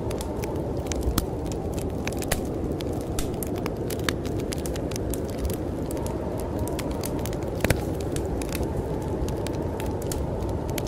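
Wood fire crackling in a fireplace, with irregular sharp pops and snaps. Under it runs a steady low rush of storm wind.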